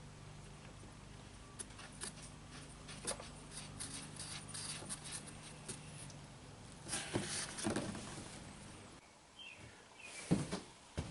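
Scattered small clicks, taps and scraping of metal parts being handled as a new idle air control valve is fitted into a Chevy throttle-body-injection unit, with a louder scraping, rustling stretch about seven seconds in. A steady low hum underneath stops about nine seconds in.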